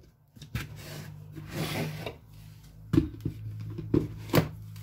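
Plastic blender lid and jar being handled and fitted onto the blender's base: a soft scraping and rubbing, then three sharp plastic knocks in the second half as the jar is seated, over a low steady hum.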